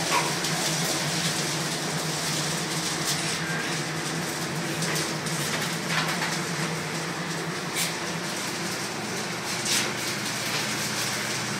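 Steady machine hum and rushing air of a hog barn's ventilation equipment running, with a few brief sharp high sounds every couple of seconds.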